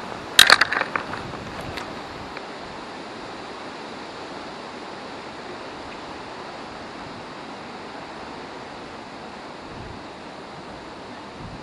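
Steady rushing of river water and wind, with a brief clatter from the spinning reel in hand about half a second in.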